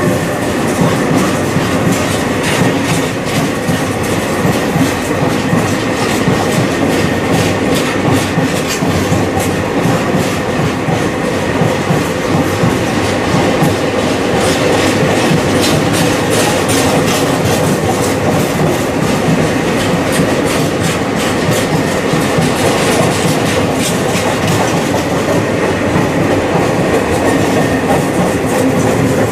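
Freight train wagons rolling past at speed, wheels clicking steadily over the rail joints in a loud, continuous rush of rail noise.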